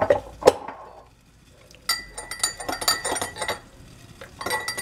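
Metal teaspoon stirring honey into tea in a glass mug, clinking quickly and repeatedly against the glass so that it rings. Two sharp clinks come near the start, then a short pause, then two spells of rapid clinking.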